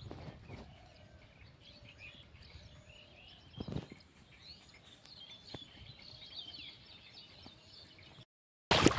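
Many small birds chirping and twittering in the background, with a single low thump about four seconds in. Near the end the sound cuts out for a moment and comes back with a sudden loud rush of noise.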